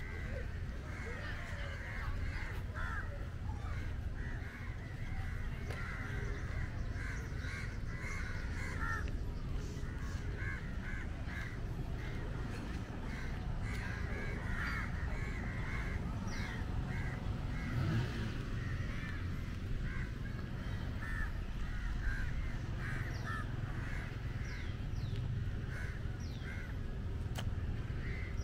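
Birds calling continuously: a dense chatter of short, rapid, overlapping calls, with a few thin higher whistles, over a steady low rumble.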